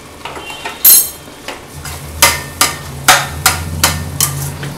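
Perforated stainless-steel skimmer stirring thick chutney in a steel kadai, knocking against the pan in a run of sharp metallic clinks. There is one loud knock about a second in, then about two clinks a second.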